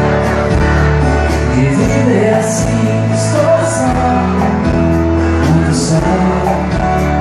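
Live band music played loud through a concert sound system, with singing, a steady bass and regular cymbal hits.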